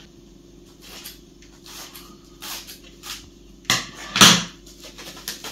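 Plastic cling film pulled off its roll and torn off, with crinkling plastic rustles and two louder swishing rips late on.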